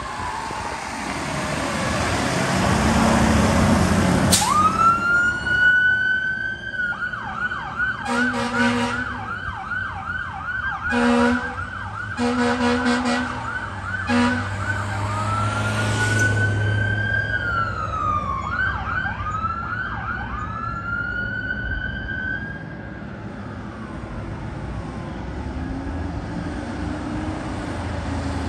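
Fire engine pulling away with its diesel engine running. About four seconds in, its electronic siren starts with a rising wail, then switches to a fast yelp broken by four horn blasts. It wails and yelps again, then winds down, leaving engine and traffic noise.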